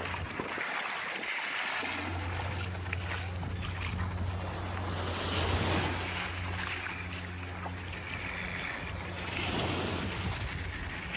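Small waves washing onto a sandy beach, with wind on the microphone. The wash swells twice, about halfway through and again near the end, over the steady low hum of a boat engine.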